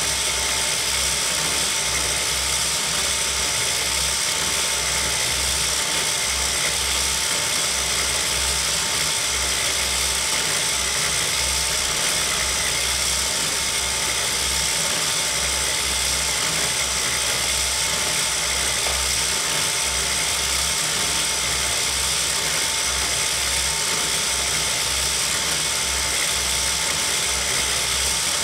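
Motor-driven, 3D-printed circular knitting machine running steadily while it knits: a constant mechanical hum with a thin steady whine and a fluttering low rumble underneath.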